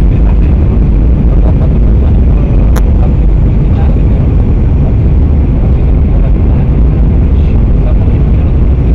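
Steady roar of a jet airliner's turbofan engines and rushing air, heard inside the passenger cabin during the descent toward landing. There is one brief high click about three seconds in.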